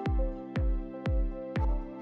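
Electronic background music with a steady kick-drum beat about twice a second, under held chords and a simple melody.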